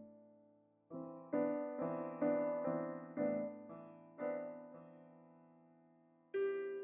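Slow background piano music. Chords are struck about every half second. One is left to ring out and fade for about two seconds, and a new chord comes near the end.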